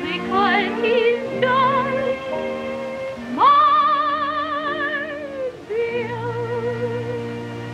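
A woman singing a slow ballad with wide vibrato over a theatre orchestra. About three seconds in she swoops up to a long held note, then sings a last phrase.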